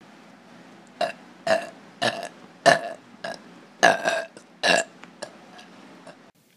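A person burping in a rapid string of about eight short belches, roughly one every half second, starting about a second in, with a few fainter ones trailing off near the end.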